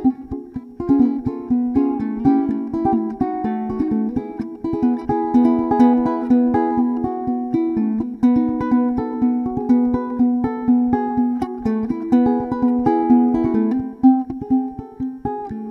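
W J Herringe ukulele played solo and fingerpicked: a steady, quick run of plucked single notes and chords with a lilting rhythm.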